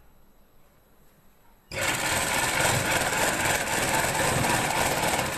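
Sewing machine running steadily while stitching a seam through cloth. It starts abruptly about two seconds in and stops at the end.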